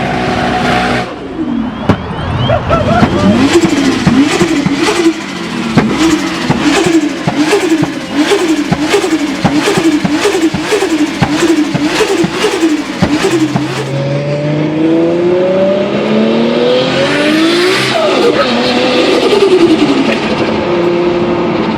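Turbocharged car engine blipped hard over and over, about one and a half revs a second, with sharp cracks at each blip. After that the car accelerates hard with a steadily rising pitch, then passes by with the pitch falling.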